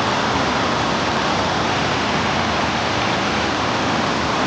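Steady, even rushing of water, with no change in level.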